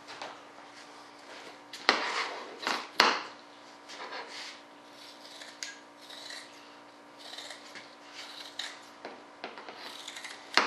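Fiberglass cloth being handled and smoothed on a mold: irregular rustling and scraping, with a few sharper knocks about two to three seconds in and again near the end, over a faint steady hum.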